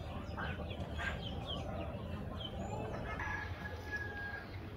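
Birds calling: short chirping notes, with one held whistle-like note about three seconds in, over a steady low background rumble.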